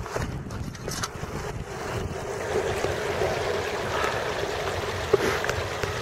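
Outdoor wind buffeting the microphone, with a steady low hum running underneath and a few faint knocks.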